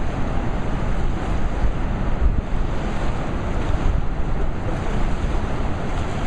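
Rapids of the swollen James River, a steady rush of fast water, with wind buffeting the microphone.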